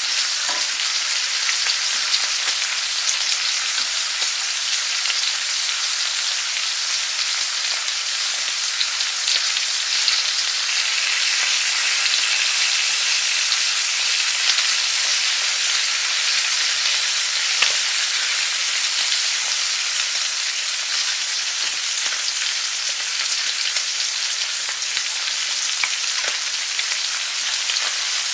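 Food frying in a hot pan: a steady sizzle with scattered small pops.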